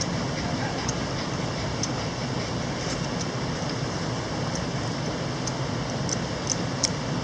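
Mountain stream water rushing steadily, with a few small sharp ticks over it, more of them near the end.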